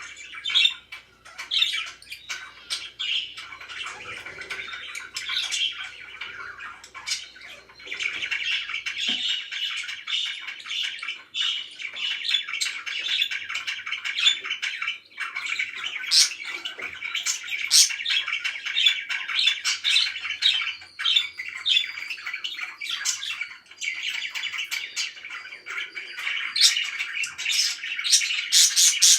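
Pet parakeets chattering and chirping without pause, with many short, sharp squawks over the chatter and a flurry of loud calls near the end.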